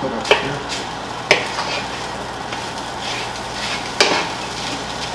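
Fried rice and egg sizzling in a non-stick frying pan while a wooden spatula stirs it. The spatula knocks sharply against the pan three times, about a third of a second in, just over a second in, and about four seconds in.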